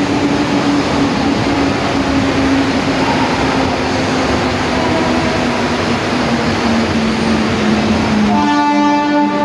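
Mumbai suburban electric local train running at a station platform: a steady loud rumble with a humming motor tone that drifts slightly lower, and a brief louder pitched tone near the end.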